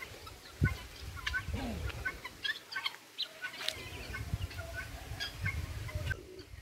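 A flock of helmeted guineafowl calling, many short high calls overlapping in a scattered chatter.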